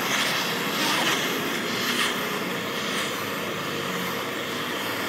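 Handheld gas torch burning with a steady hiss, its flame heating the aluminium crankcase's crankshaft bearing bore so the metal expands to take the crankshaft.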